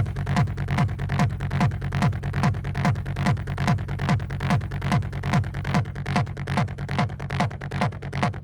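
Hard techno (Schranz) track: a pounding kick drum at about two and a half beats a second over a steady droning bass, with clattering percussion on top that thins out near the end.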